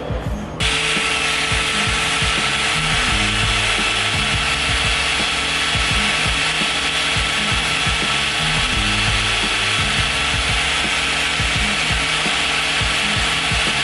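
Plastic electrical connector being shaved down to fit, a steady rasping noise that starts abruptly under a second in.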